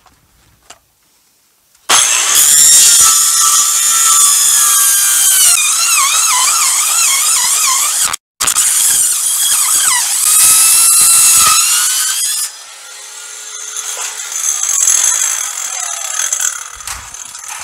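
Corded circular saw with a wood blade mounted backwards, cutting through a stack of six corrugated metal roofing sheets: a loud, harsh metallic screech with wavering pitch that starts about two seconds in and runs for about ten seconds. The blade then winds down with a falling whine.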